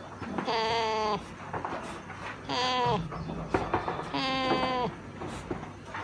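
A Saanen buck goat sick with pneumonia gives a short, strained bleat three times, about every second and a half. This noise made with its breathing is the laboured breathing typical of goat pneumonia.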